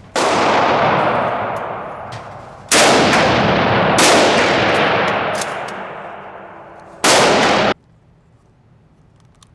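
Four rifle shots, about a second and a half to three seconds apart, each followed by a long echoing tail that fades away; the fourth stops abruptly less than a second after it is fired.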